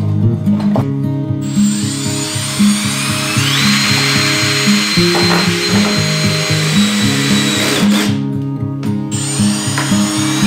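Cordless drill/driver running under load while the heater is being fastened down, its whine rising to a steady high pitch. It runs for about six seconds, cuts off, and starts again near the end. Guitar background music plays throughout.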